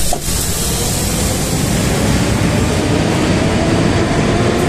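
Sliding doors of a metro car opening with a sudden burst of noise, then the loud, steady rumble and hiss of a metro train at the station platform.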